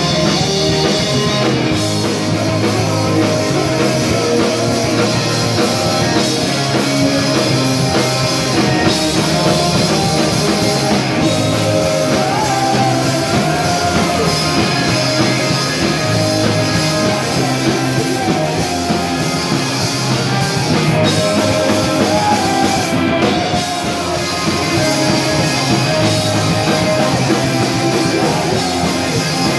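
Punk rock band playing live and loud: electric guitars, bass guitar and drum kit going without a break.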